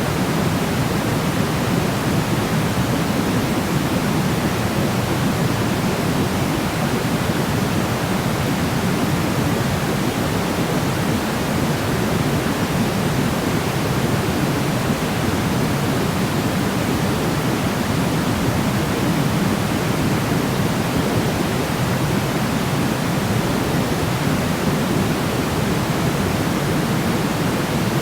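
Steady sleep-aid noise: an even, unchanging hiss that does not vary over time, weighted toward the low end like pink noise rather than pure white noise.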